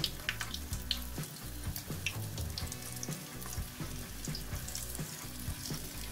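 Vegetable pakora batter deep-frying in hot oil in a pan: a steady sizzle with frequent crackles as spoonfuls of batter cook.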